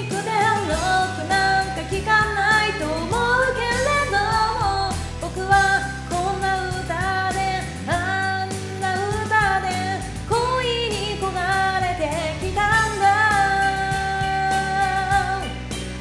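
Karaoke backing track of a pop-rock song playing its instrumental interlude: a lead melody over bass and drums, ending on a long held note near the end.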